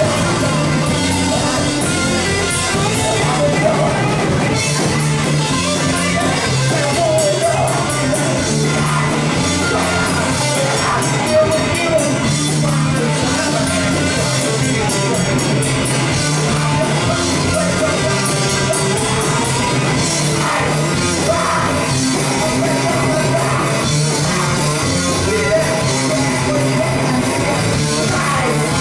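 Live rock band playing loud, with electric bass, guitars and drums under a singer's voice.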